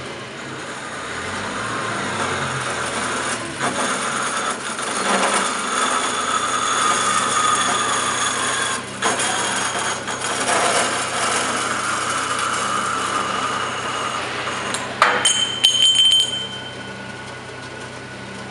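Wilton 3602 horizontal band saw's blade cutting through a round steel bar: a steady rasping cut over the hum of the saw's motor, building up over the first couple of seconds. About fifteen seconds in, a few sharp metallic clinks with a ringing tone, after which mostly the motor hum remains.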